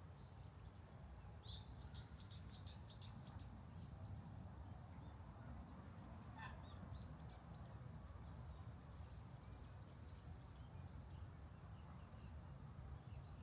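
Faint birdsong: a quick run of high, falling chirps about two seconds in, a single call near the middle and scattered faint chirps later, over a low steady rumble.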